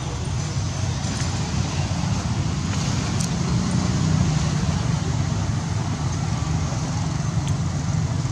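Steady low rumble with a hiss over it, with a faint click about three seconds in and another near the end.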